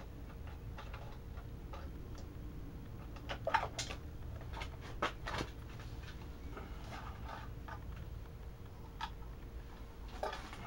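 Scattered clicks and light knocks of hand-handled plastic and metal as the cover is worked off an air compressor's pressure switch. The loudest cluster comes a few seconds in, and it all sits over a low steady rumble.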